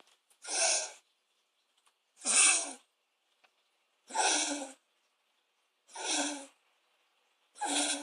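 Dog coughing with a honking sound: five harsh hacks, one roughly every two seconds, with quiet between.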